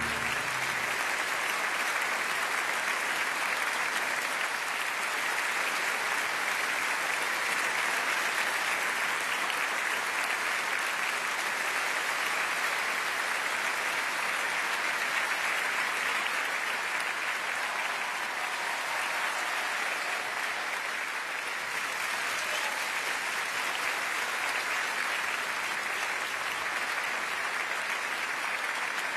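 Large audience applauding steadily and continuously in a big hall.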